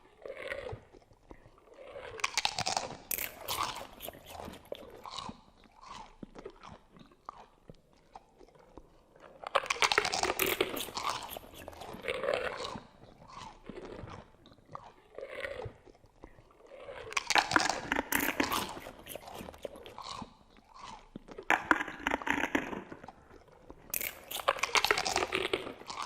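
Monster chewing-bones sound effect: wet, heavy chewing with crackling crunches of bone, coming in about five loud bursts with quieter gnawing in between.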